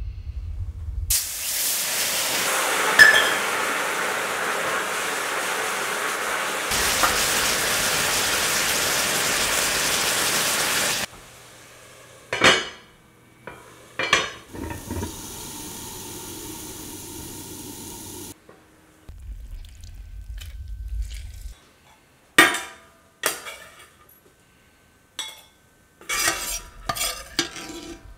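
Food sizzling loudly in a hot FINEX cast iron skillet for about ten seconds. Then the cast iron lid clanks on twice and steam hisses quietly under it. Near the end a single clank, then a metal slotted spoon scraping and clinking against the skillet and a ceramic bowl.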